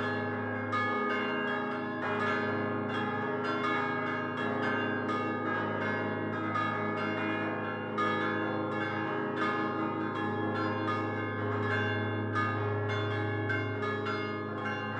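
Church bells cast by Prospero Barigozzi in 1928, hung fixed and struck by hand-swung clappers in a rapid, continuous peal, about two strikes a second with the tones overlapping. The deep hum of the lowest bell drops out about a second in and returns near the end.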